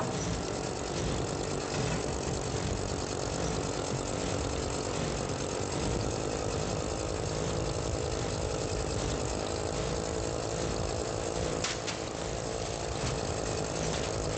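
A machine running steadily without a break, with a short sharp click about twelve seconds in.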